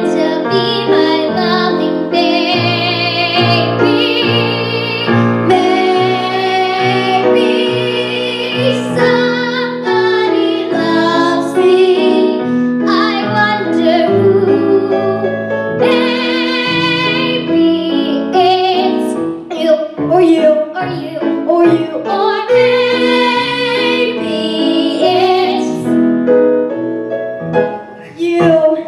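A girl and a boy singing a duet into handheld microphones over piano accompaniment, with vibrato on held notes; the song ends near the end.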